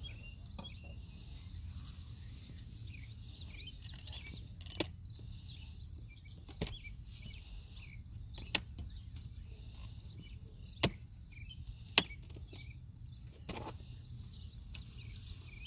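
Wooden beehive parts being handled and knocked: a handful of sharp, separate wooden clicks and knocks, two of them loudest in the second half, over a steady low background hum.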